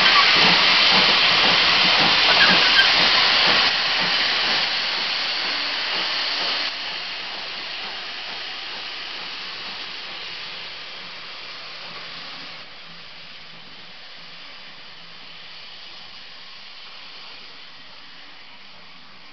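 Two steam pannier tank locomotives, one of them GWR 1500 class No. 1501, hauling a train away: loud steam hiss with regular exhaust beats at first, then fading to a quieter hiss as the train draws off.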